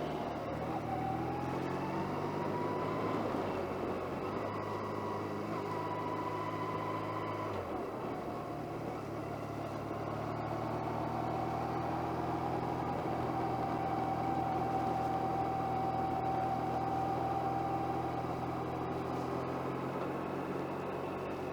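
Motorcycle engine running under way, with road and wind noise. Its note climbs over the first few seconds, drops and shifts about eight seconds in, then holds steady.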